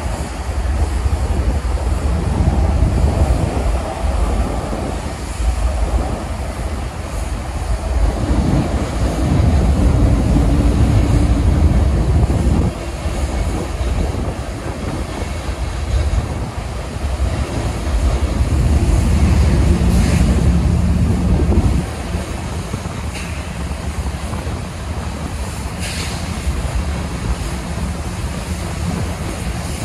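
Union Pacific freight train of hopper cars rolling past, a steady low rumble of steel wheels on rail. It swells louder twice, and a few sharp clicks come in the second half.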